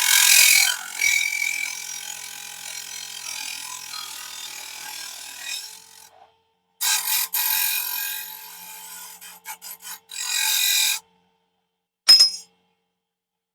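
Mini table saw cutting small aluminum channel: a high-pitched cutting hiss over a steady motor tone, in two long passes of about six and four seconds, then a short burst near the end.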